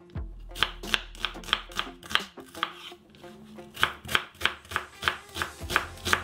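Chef's knife dicing an onion on a wooden cutting board: crisp knife strokes about three a second, with a short pause near the middle.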